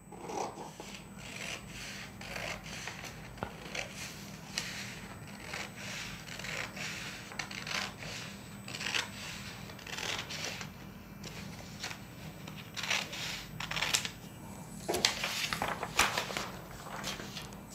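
Scissors snipping through a paper blouse pattern, a run of uneven cuts mixed with the paper rustling and sliding on the table, the loudest snips a couple of seconds before the end.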